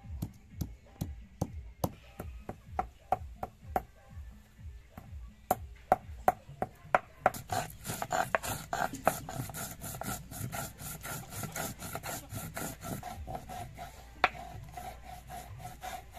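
A stone roller on a textured stone grinding slab (sil-batta). At first it knocks on small spice pieces about twice a second to crush them. About seven seconds in it switches to a fast back-and-forth rasping rub, about five strokes a second, as the spices are ground.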